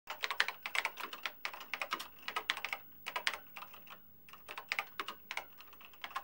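Computer keyboard typing sound effect: rapid, irregular key clicks in bursts, with a short lull about four seconds in, laid under on-screen text typing itself out.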